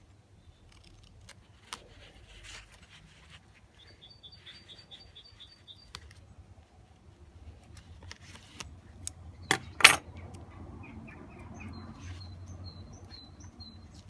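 Large steel scissors snipping and handling duct tape, with two sharp clicks about two-thirds of the way through as the loudest sounds. A small bird chirps in two quick runs of evenly spaced notes in the background.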